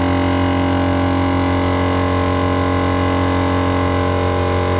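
All-Top dual-cylinder air compressor running under load, a loud, steady, even drone, pumping up a 35-inch tire from about 10 psi.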